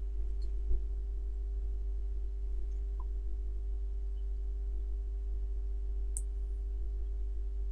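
Steady electrical hum in the recording, a low drone with a few held tones above it, and a few faint clicks.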